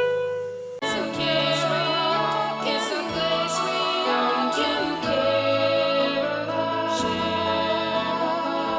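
Logo jingle music: a descending run of notes ends a moment in, then about a second in a full orchestral and choral-sounding fanfare swells in and holds with a wavering melody line.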